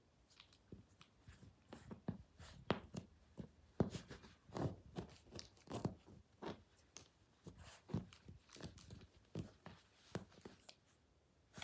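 Pomeranian wriggling and rubbing in a plush fleece dog bed: irregular scratchy rustles and scuffs of fabric, some close together.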